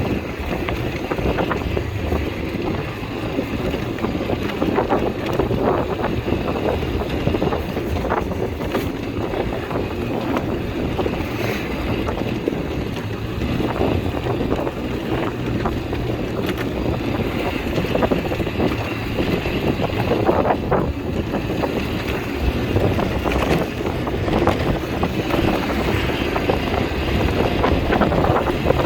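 ATV engine running steadily, nearly buried under heavy wind noise buffeting the microphone.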